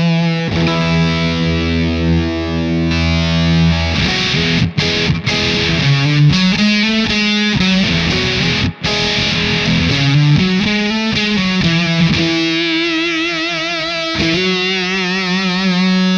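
Electric guitar played through a Fender Shields Blender octave-up fuzz pedal, with some clean signal blended in and the expand footswitch on: sustained fuzzy notes with bends, wavering in pitch near the end.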